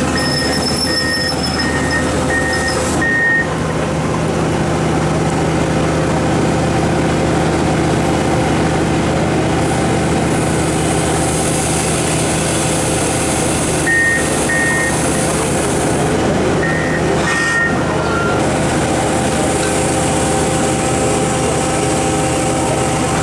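Komatsu PC4000-11 mining excavator running steadily, with its warning beeper sounding in short, evenly spaced beeps for the first few seconds and again briefly a little past the middle.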